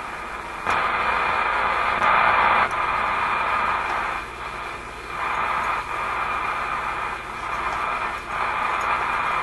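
RCA A25 vacuum-tube shortwave radio hissing with static from its speaker on a newly selected band. The hiss comes on abruptly under a second in, is loudest briefly around two seconds, then swells and dips every second or so.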